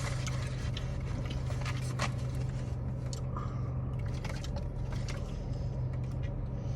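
Small clicks, crackles and rustles of eating and handling food over a steady low hum.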